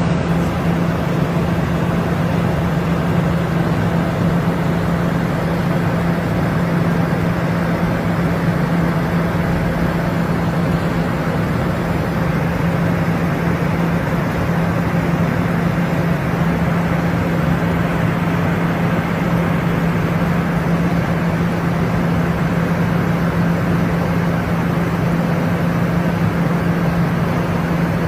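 Steady cockpit noise of an airliner in flight: an even rushing with a constant low hum that does not change.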